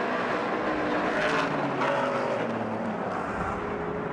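Engines of several Stadium Super Trucks racing in a tight pack, with overlapping engine notes. Some of the notes fall in pitch between about one and two seconds in.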